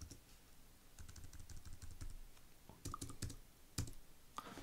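Keys pressed on a computer keyboard: a run of faint, quick taps, then about four sharper single key presses spaced apart in the second half.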